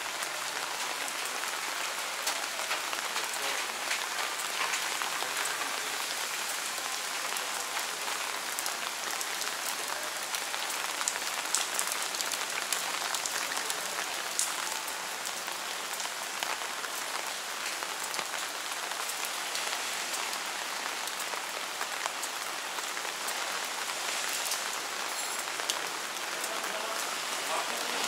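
Steady rain falling on a wet paved street, an even hiss scattered with many small drop ticks.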